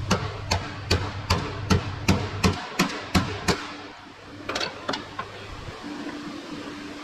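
Hammer tapping on metal, ten sharp even strikes about two and a half a second, then a few more taps a second later, over a steady low hum.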